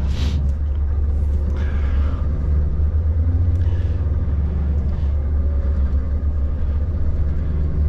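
Scania S770's V8 diesel engine and road noise on the move, heard inside the truck's cab as a steady low drone, with a few brief hisses.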